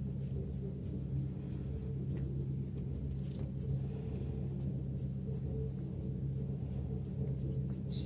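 A hand rubbing a long-haired cat's belly fur: a soft, scratchy rustle in even strokes about three times a second, over a steady low hum.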